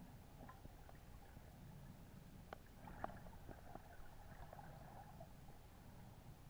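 Near silence: faint, muffled underwater ambience with a low rumble and scattered small clicks, the sharpest two about two and a half and three seconds in.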